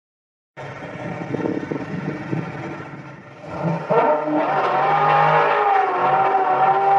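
Muscle car engine starting out of silence with a low, rough rumble. About three and a half seconds in it revs up sharply and holds at high revs, as for a burnout.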